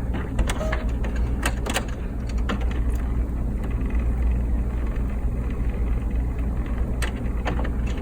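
Canon MX870 inkjet printer's mechanism running as it powers up past its print-head check: a steady motor hum with sharp clicks and clacks from the carriage and paper mechanism, several in the first three seconds and two more about seven seconds in.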